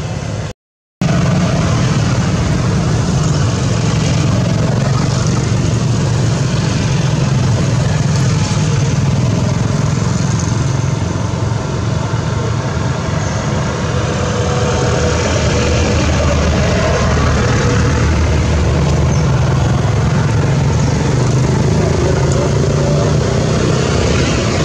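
Steady low rumble of motor traffic, engines running nearby without rising or falling. The sound cuts out completely for about half a second near the start.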